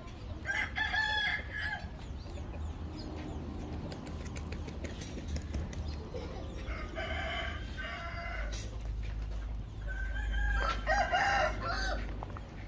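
A rooster crowing three times, each a long pitched crow of a second or more: about a second in, about midway, and near the end.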